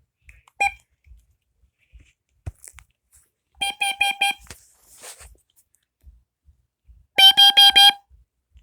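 Lifesaver LS45700BZ battery-operated carbon monoxide alarm sounding on test: four quick beeps, then after about three seconds four more, louder. The four-beep pattern is the carbon monoxide alarm signal.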